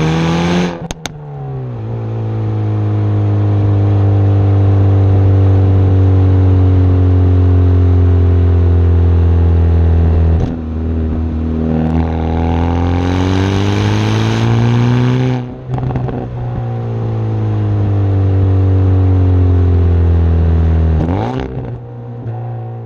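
Hyundai i30N Performance's turbocharged 2.0-litre four-cylinder engine pulling under acceleration. Its pitch rises slowly over long stretches, breaks off briefly twice, about ten and fifteen seconds in, and falls away near the end.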